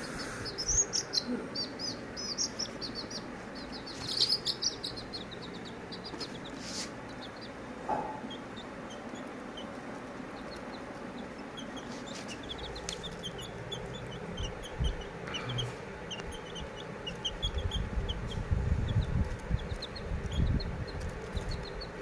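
Small birds chirping, in quick runs of short high chirps. A low rumble joins in over the last few seconds.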